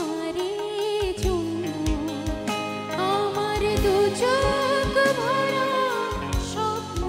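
A woman singing a melody with a live band, holding long wavering notes over sustained keyboard chords, electric bass and regular kick-drum beats.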